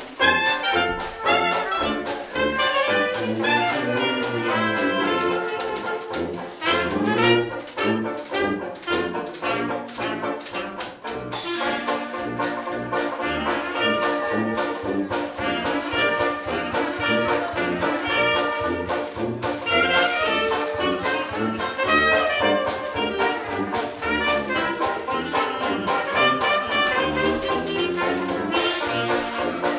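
Live New Orleans-style trad jazz: trumpet and clarinet playing the melody together over sousaphone bass, with banjo and washboard keeping a steady beat.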